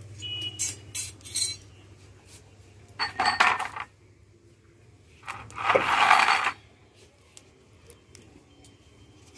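Metal cooking utensils clinking, then a metal kadai (wok) being lifted off a wood-fired stove and set down on a concrete floor: a clank about three seconds in, and a louder scraping clatter around six seconds in.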